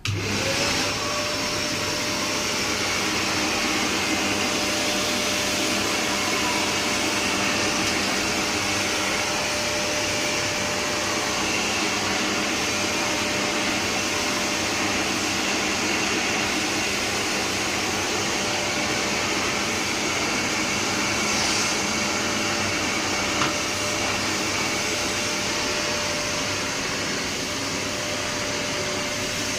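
Bissell Power Clean vacuum cleaner switching on, its motor spinning up with a short rising whine, then running steadily with a constant motor whine and rush of air.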